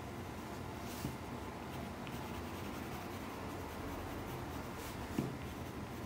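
Colored pencil shading on paper, a soft, steady scratching of strokes. A light knock comes about a second in and a louder one about five seconds in.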